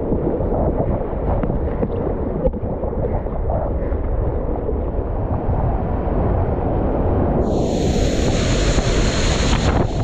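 Whitewater rapids rushing around the kayak, a steady, muffled, low rush. Near the end a louder hiss of spray splashes over the boat for a couple of seconds.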